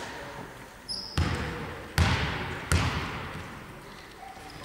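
A basketball bounced three times on a hardwood sports-hall floor, about once every three-quarters of a second, with a fainter knock just before the first. Each thud echoes around the hall. This is a free-throw shooter's bouncing routine at the line before the shot.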